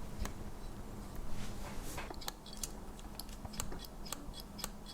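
Light, irregular metal clicks and ticks from a Victorinox Angler Swiss Army Knife as its pliers are handled and worked open and shut.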